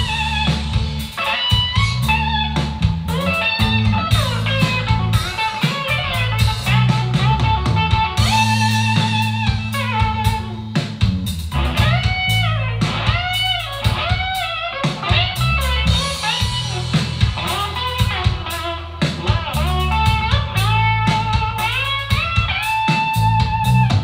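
Live blues-rock performance of an electric guitar soloing with bent, sliding notes over bass and drums, played back through a Bang & Olufsen BeoVision Harmony TV sound system.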